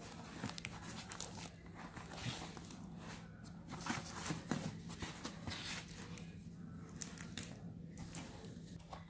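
Taped cardboard parcel being handled and turned over: irregular scrapes, knocks and plastic-tape rustles, over a steady low hum.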